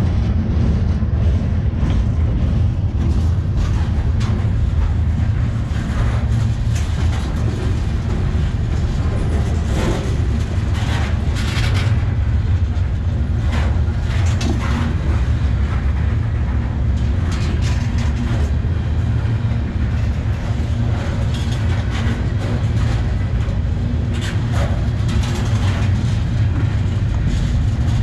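Freight train cars rolling past close by: a steady, loud rumble of steel wheels on rail, with short sharp metallic clanks and squeals now and then.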